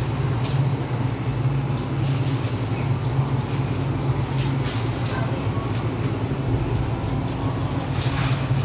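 Steady low machine hum with scattered light clicks and rattles, the background noise of a supermarket aisle.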